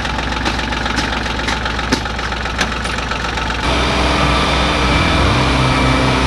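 An engine running steadily with a light, regular ticking, which changes abruptly about three and a half seconds in to a louder, deeper running.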